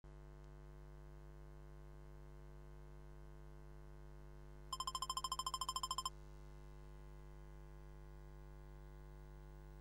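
Faint steady low electronic drone, broken about five seconds in by a rapid electronic beeping, about ten pulses a second for roughly a second and a half.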